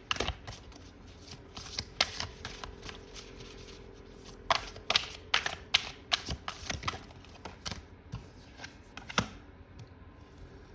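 Tarot cards being shuffled by hand: clusters of quick, sharp card flicks and slaps that stop about nine seconds in.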